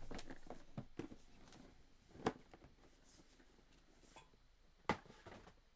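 Cardboard box being handled: scattered soft knocks and rustles, with a sharper knock about two seconds in and another near the end.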